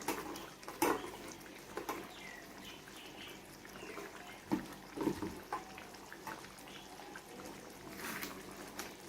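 Chicken rendang simmering in coconut milk and spice paste in a wok, bubbling and popping softly, with a few short knocks now and then.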